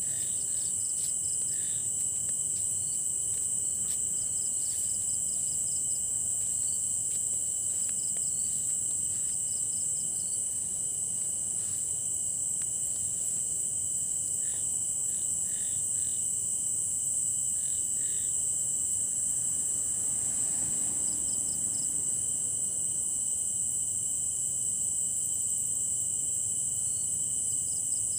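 Night insect chorus: crickets trilling in a steady high-pitched drone, with a second steady lower tone and short clusters of chirps that come and go, thinning out after about the first eighteen seconds.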